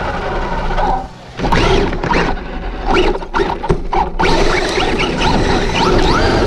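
Traxxas Rustler 4x4's brushless motor and geartrain whining in rising and falling sweeps as the throttle is blipped, over tyre and road noise, picked up by a camera mounted on the car. It drops away briefly about a second in.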